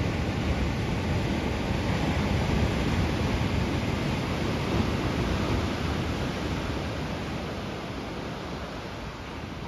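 Ocean surf washing along the shore as a steady rush, with wind rumbling on the microphone; it swells in the first half and eases off toward the end.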